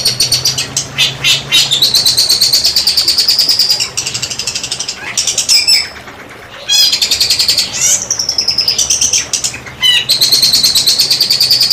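A songbird singing rapid-fire 'tembakan' song: long runs of fast, evenly repeated high notes, the first run rising slightly in pitch. The song breaks off briefly about halfway through, resumes with a few separate notes, and a fresh long run starts near the end.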